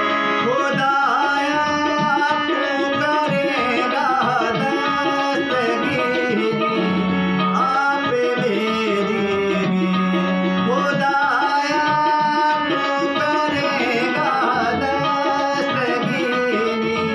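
Harmonium playing a melody over held reed tones, with a man singing a devotional song and a steady tabla rhythm underneath.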